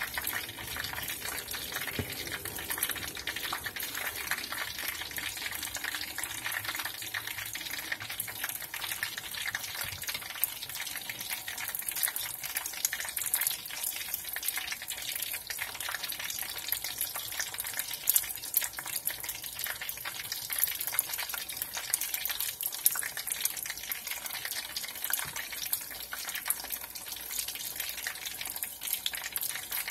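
Shrimp deep-frying in hot oil for crispness: a steady sizzle thick with small crackles and pops.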